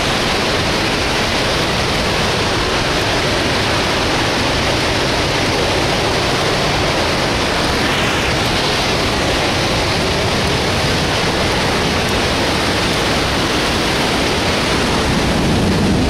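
Loud, steady rush of a nearby waterfall.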